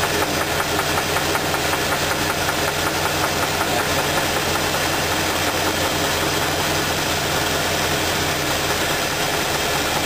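V8 engine idling with a steady, rhythmic knock from a bad rod bearing on the number 2 cylinder. The engine note changes about nine seconds in, while spark plug wires are being pulled one at a time.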